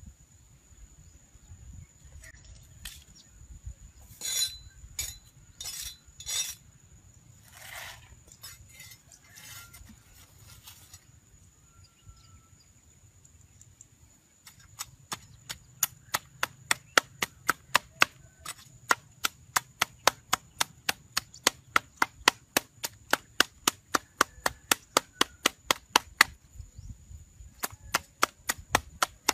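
A blade chopping, fast and even at about three strokes a second, starting about halfway in and pausing briefly near the end. A few scattered knocks and scrapes come before it, over a thin steady high tone.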